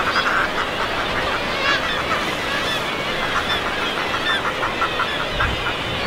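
A seabird colony calling: many birds giving short, harsh calls at once, overlapping densely throughout, over steady wind and surf noise.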